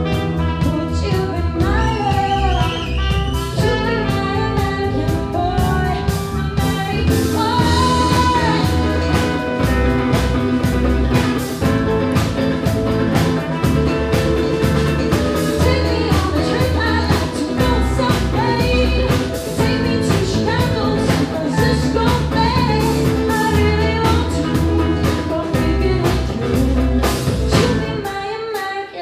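Live band music with a steady drum beat, bass and a singing voice; the band stops abruptly just before the end.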